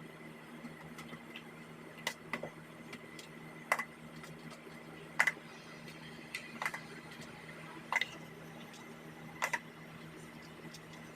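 Scattered sharp clicks and taps, about eight at uneven intervals, the loudest about halfway through, over a steady low hum.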